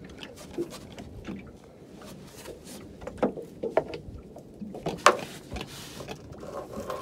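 Scattered knocks and taps on a fibreglass boat hull as a freshly landed fish is handled on the deck floor, with one sharp, loud knock about five seconds in.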